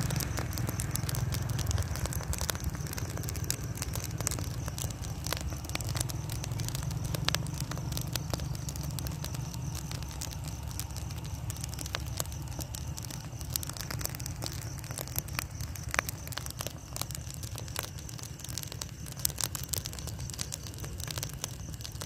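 A burning heap of rice straw crackling and popping in frequent irregular snaps, over a steady low rumble.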